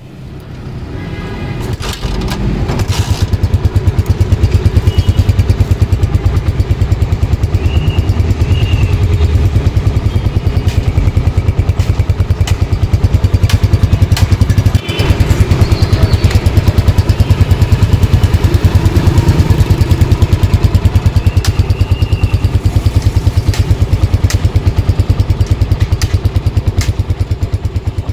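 Super Star SS125 Deluxe motorcycle's 125 cc single-cylinder four-stroke engine running for a sound test. It builds over the first few seconds, then holds a steady, even beat, with a brief dip about halfway.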